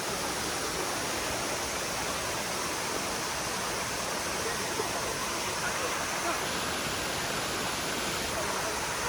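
Steady rush of flowing water, an even hiss that holds at a constant level.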